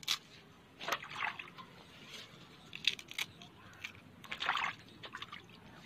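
Water sloshing and splashing in a shallow metal basin as freshly pulled radishes are rubbed clean by hand, in a few short bursts.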